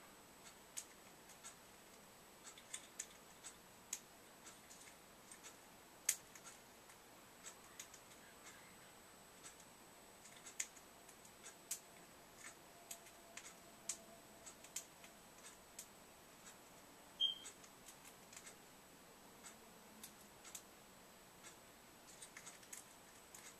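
Irregular light clicks and taps from a parrotlet moving about its wire cage. One short, high chirp comes about two-thirds of the way through.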